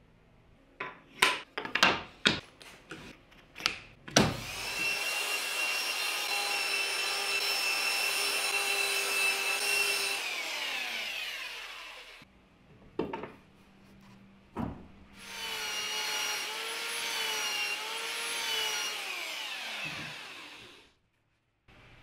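Several sharp wooden clacks as ash frame pieces are handled on the bench, then a handheld belt sander runs twice, about six seconds and then about five, winding down each time. On the second run its pitch wavers up and down.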